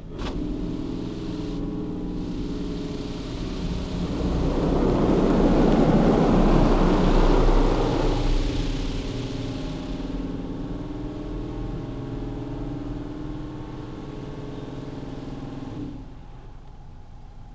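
Automatic car wash dryer blowers heard from inside the car: a steady motor hum with rushing air over the body and glass that starts abruptly, grows loudest a few seconds in as the blowers pass over the windshield, then eases and drops off sharply near the end.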